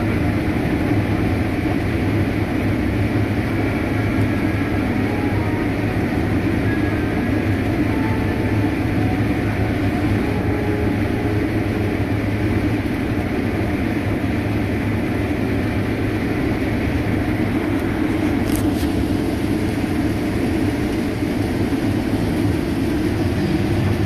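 Rotary combine harvester threshing corn under load, heard from inside the cab: engine at about 2100 rpm and 81% load with the rotor turning, a steady mechanical drone and hum. A single sharp tick about three-quarters of the way through.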